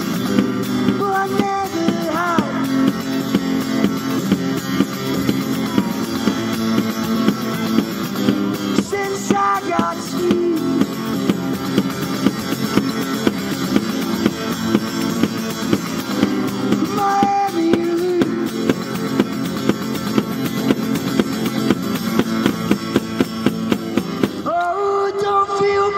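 Acoustic guitar strummed in a steady rhythm: an instrumental passage with no singing.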